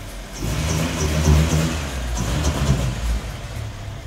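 Acura Integra DC2's four-cylinder engine accelerating as the car pulls away past. The engine sound comes in about half a second in, peaks soon after, and dies away before the end.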